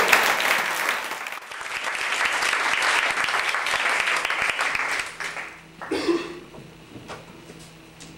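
Audience applauding after a poetry reading. The clapping dips briefly about a second and a half in, then fades out about five seconds in.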